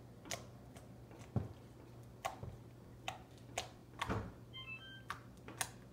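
Slime being squeezed and stretched by hand, making irregular sticky clicks and pops. A few faint short electronic beeps come just before the five-second mark.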